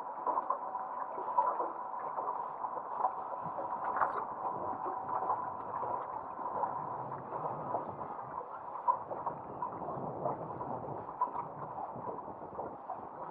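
Water lapping and gurgling against a small boat's hull, with scattered small slaps and a faint steady hum.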